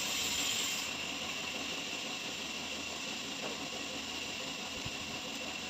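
Steady background hiss with no distinct knocks, tool strokes or engine note.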